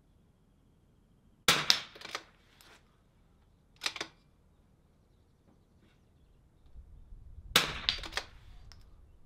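Shots from a .22 LR bolt-action rifle (Vudoo 360): two sharp reports about six seconds apart, the first about one and a half seconds in. Each is followed by a few quicker clicks and knocks, with a single softer knock in between.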